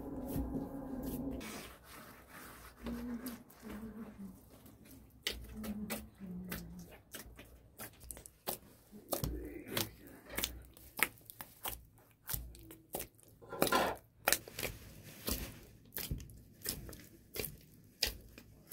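Hands kneading soft, sticky bread dough in a plastic basin: irregular wet squelches, slaps and sticky tearing sounds, coming thick and fast after the first few seconds.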